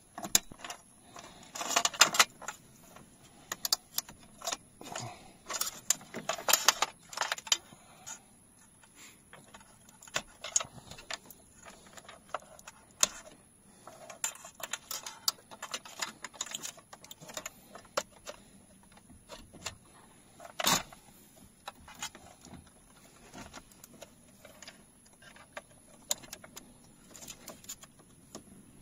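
Plastic wiring-harness connectors and bundled wires being handled and plugged into the back of a car stereo head unit: irregular clicks, rattles and rustling of cables, with one sharp snap about two-thirds of the way through.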